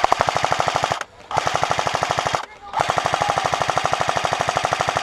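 Airsoft gun firing on full auto close by in three long bursts of rapid, even shots, with short breaks about one second and two and a half seconds in.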